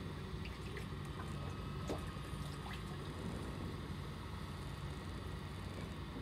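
Fishing boat's engine idling, a steady low hum, with water lapping at the hull and a few faint ticks.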